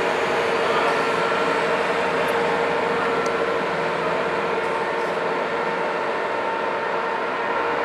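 Skid steer loader's engine running steadily, a continuous machine drone with a steady hum that holds throughout.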